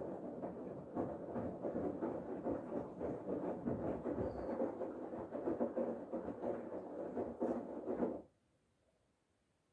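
Bosch Serie 8 front-loading washing machine in its main wash: the drum turning with laundry tumbling and water sloshing inside, then stopping abruptly about eight seconds in as the drum pauses between turns.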